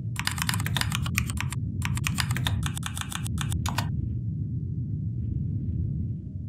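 Computer keyboard typing: quick keystrokes in two bursts, a short one and then a longer one after a brief pause, over a steady low hum.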